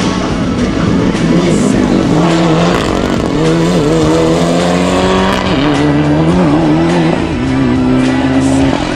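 Mitsubishi Lancer Evolution IX rally car driven hard, its engine revving and its tyres scrabbling, mixed with background music.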